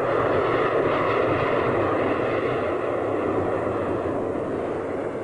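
Jet engine noise from a low-flying jet trainer passing close by, a loud steady rush with a high whine on top that eases slightly near the end.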